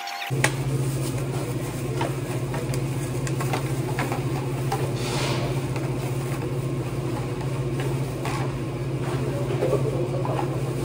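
Steady low hum of the shop's equipment, with scattered light clicks and rustles from plastic salad bowls and paper being handled.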